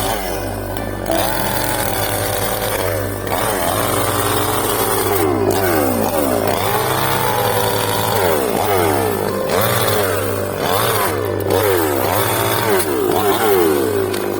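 Ibell chainsaw cutting teak, its engine revving up and dropping back again and again, breaking off briefly several times as short clips are cut together, with music underneath.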